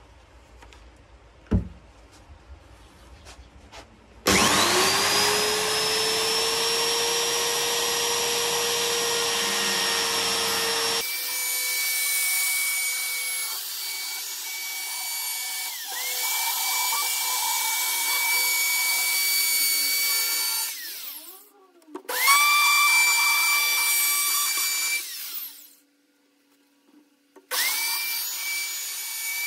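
Electric power tool in a woodworking shop, starting about four seconds in with a rising whine that settles to a steady pitch. It then runs in several stretches, winding down and stopping between them. Before it starts there is near quiet with a single click.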